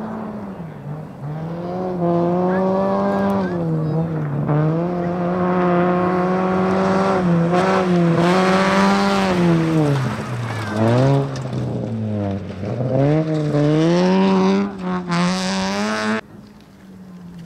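Rally car engine running hard on a gravel stage, its pitch rising and falling repeatedly with gear changes and lifts of the throttle, and dipping lowest a little past the middle. A brief hiss comes near the end before the sound drops sharply to a quieter, steady engine note.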